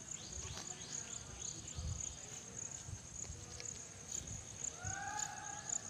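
Insects chirring in a steady high-pitched trill that pulses a few times a second, over low thumps. A short call rises and falls near the end.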